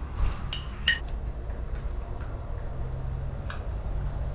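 Metal serving spoon clinking against a steel platter and ceramic plates as rice is served: three sharp clinks in the first second and one more about three and a half seconds in, over a steady low hum.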